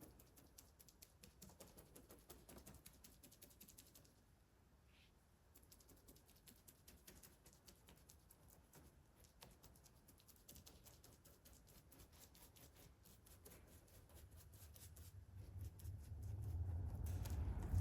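Faint, rapid light patting and tapping as a brush dabs polyester resin into fiberglass mat during a hand layup. A low hum rises over the last few seconds.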